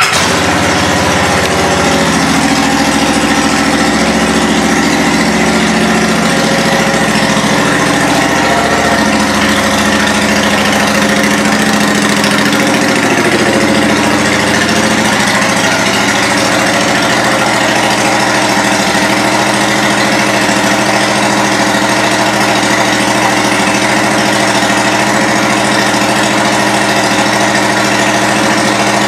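The V-twin engine of a 2014 Honda Shadow Spirit 750, fitted with Cobra aftermarket exhaust pipes, idling steadily. The idle shifts and settles to an even beat about eight to ten seconds in.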